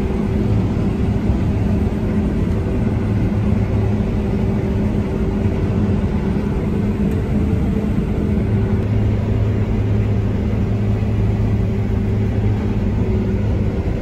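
New Holland combine harvester running, heard from inside its cab: a steady, even machine drone with a constant low hum.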